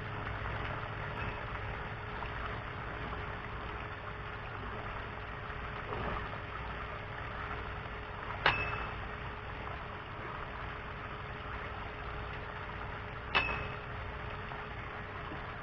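Steady rush of water running into an above-ground pool, with two short sharp clicks about five seconds apart.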